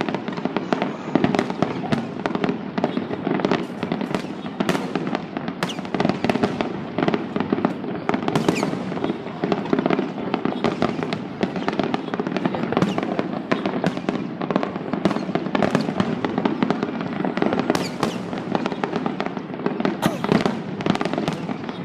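Finale barrage of aerial fireworks: a continuous rapid-fire run of overlapping bangs and crackling with no pause.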